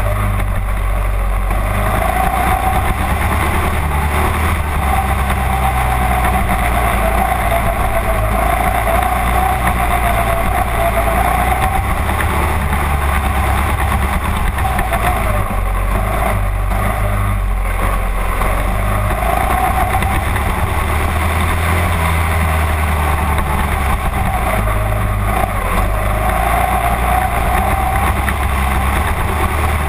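Mini-dwarf dirt-track race car engine heard from inside the cockpit while lapping. The engine note climbs and drops every few seconds over a steady low rumble.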